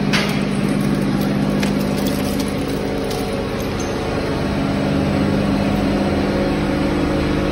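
Steady machine hum of a conveyor line and overhead belt magnet separator running as they carry crushed engine fragments, with a few sharp clicks in the first three seconds.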